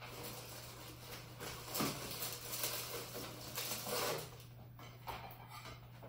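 A cardboard matzo box being opened and a crisp sheet of matzo pulled out and set on a plate: a run of rustling and scraping, loudest about two seconds in and again around four seconds.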